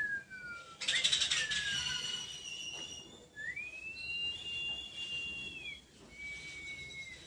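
Someone whistling slowly, a few clean notes with gliding pitch: a falling note, another falling note, one long held note and a shorter one near the end. A brief crackle comes about a second in.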